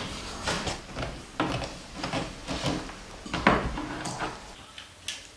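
Wooden boards knocked and slid against each other and against a wooden tabletop as they are lined up and clamped: a string of irregular knocks and scrapes.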